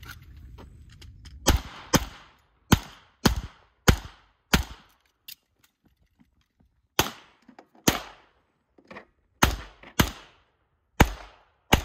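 About a dozen handgun shots in two quick strings, six in the first three seconds and six more after a pause of about two and a half seconds, each with a short echo off the range. This is a timed course of fire on a practical-shooting stage.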